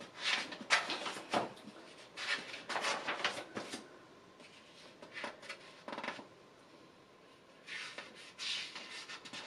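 Pages of a picture book being turned and handled: paper rustles in several short bursts, most in the first four seconds and again near the end, with a few light taps between.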